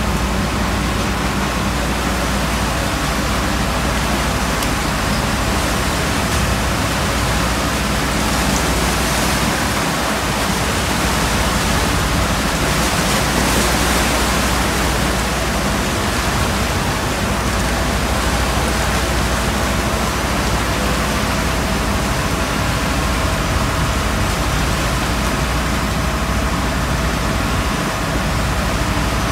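Seawater from breaking waves rushing and sloshing across a tanker's steel deck, swelling to a louder surge about halfway through, over a steady low rumble.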